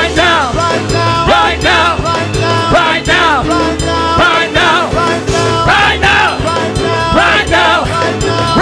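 Loud upbeat gospel praise music: singing over a band with a fast, steady drum beat.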